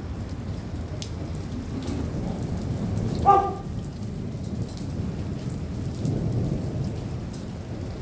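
Rain falling during a thunderstorm, with low thunder rumbling and swelling twice. About three seconds in, a short, loud pitched call stands out above the storm.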